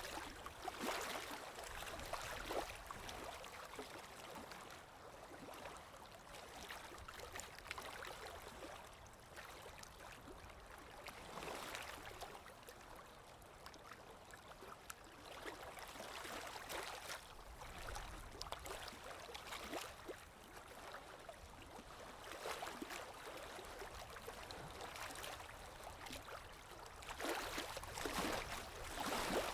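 Water lapping and splashing in small waves, swelling every few seconds, over a low steady rush of wind; the swells are louder near the start and near the end.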